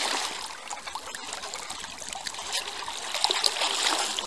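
Seawater lapping and splashing in small ripples: a continuous trickling, splashy sound.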